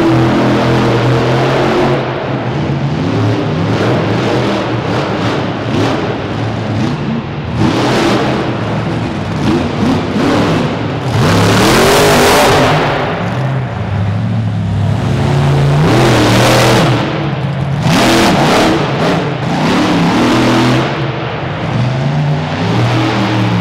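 Monster truck engines running and revving hard in repeated surges, the loudest about halfway through and again twice shortly after.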